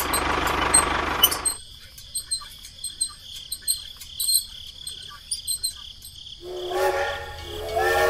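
Small motor of a homemade toy tractor running as a steady noisy whir, cutting off about a second and a half in. Faint ticking follows, then near the end a battery toy train's electronic horn sounds in steady tones that step up in pitch.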